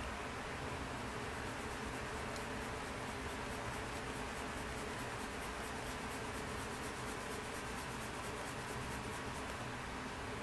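A colored pencil shading on sketchbook paper: a fast run of short, light strokes scratching softly over a steady background hiss, thickest through the middle of the stretch.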